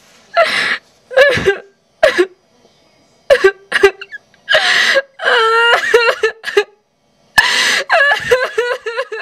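A person laughing in short breathy bursts and gasps, with longer pitched laughs about five seconds in and again near the end.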